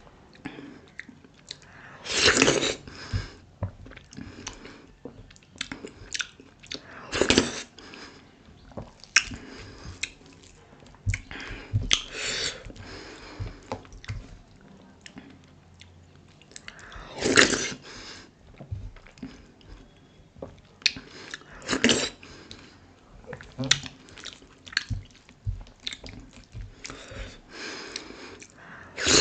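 Eating dhido with sisnu nettle soup by hand: a loud, wet bite about every five seconds, with chewing and soft squelching of fingers in the soupy food in between.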